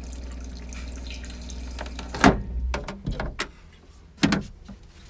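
RV toilet being flushed: water runs into the bowl over a steady low hum, then the flush valve shuts with a loud clack a little over two seconds in, followed by a few lighter knocks. A little over four seconds in the plastic lid drops shut with a second loud clack.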